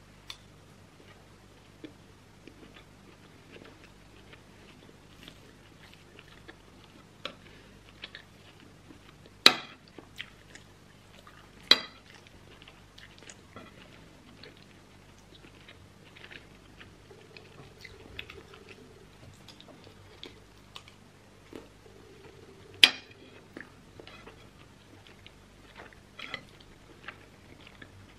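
Close-up eating sounds of soft meat stew and rice being chewed, with small wet mouth clicks throughout. A metal spoon clinks sharply against a ceramic plate three times: twice close together about a third of the way in, and once more later.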